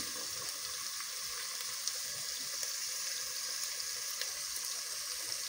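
Chopped red onions sizzling in hot oil in a metal sufuria pot: a steady hiss with a few faint pops.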